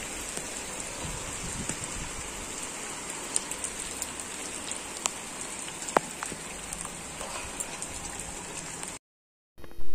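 Steady rain falling on a rooftop and its potted plants, with scattered sharp taps of single drops landing close by. The sound cuts off about a second before the end.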